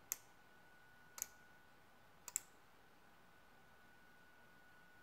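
Relays on a Centroid Acorn relay expansion board clicking as the CNC test program switches its outputs on and off: single sharp clicks about a second apart, with a quick pair of clicks a little past two seconds in, over a faint steady high tone.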